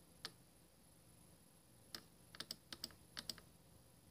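Faint clicks of computer keyboard keys being pressed: one click about a quarter of a second in, then a quick, irregular run of about nine clicks from about two seconds in.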